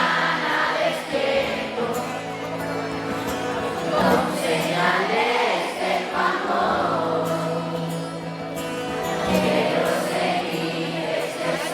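Pop song sung live over backing music, with more than one voice singing together over steady held bass notes.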